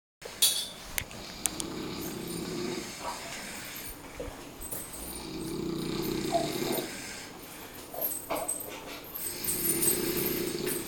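Snoring: three long, low snores about four seconds apart, with a few sharp clicks near the start and again about eight seconds in.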